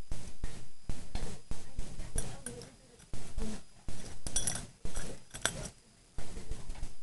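Two Cairn terrier mixes playing together: irregular clicks, knocks and scuffles from their paws and bodies, with short lulls about three and six seconds in.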